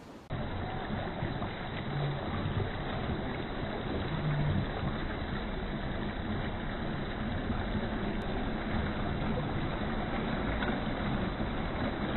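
Steady rushing, rumbling noise of water and wind, as heard aboard a racing sailboat under way. It starts abruptly a fraction of a second in and holds even, with the weight in the low rumble.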